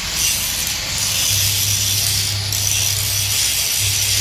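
A hand-held power tool grinding steel: a steady, hissing grind over a low motor hum that comes and goes.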